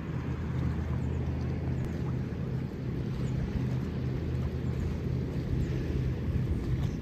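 A steady low engine hum with a wash of wind and water noise over it.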